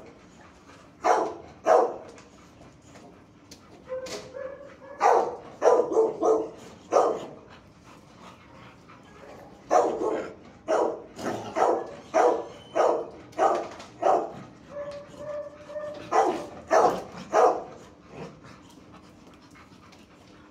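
Dogs barking in a shelter kennel block: sharp barks in repeated bursts, with a brief whine in between.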